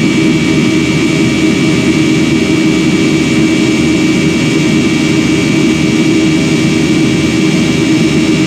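Jet airliner's engines running steadily: a constant drone of engine and air noise with a thin, steady high whine on top.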